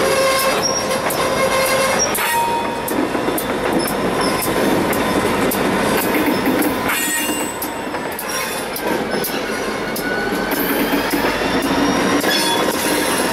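Freight train of covered hopper cars rolling by, its steel wheels squealing in steady high tones and clicking over rail joints. Diesel locomotives come past in the latter half.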